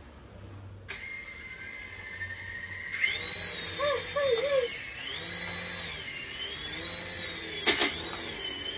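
Toy RC helicopter's small electric rotor motors whining: they spin up about a second in, grow louder as it lifts off about three seconds in, and the pitch wavers up and down as the throttle changes in flight. A couple of sharp knocks come near the end.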